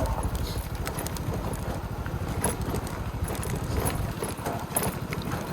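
Small Hero Honda motorcycle engine running with a fast low pulse as it rides over a rough off-road track, with scattered knocks and rattles from the bike jolting. The engine's low pulse drops away about four seconds in.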